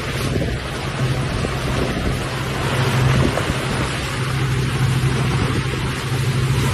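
Strong wind rushing and buffeting over the microphone, with a steady low drone underneath.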